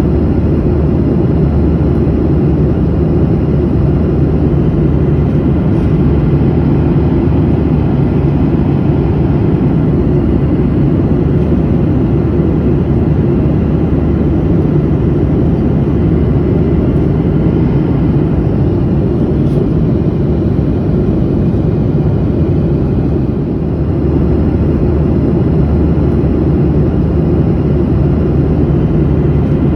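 Passenger airplane in flight, heard from inside the cabin: a steady, unbroken low rumble of engine and airflow noise.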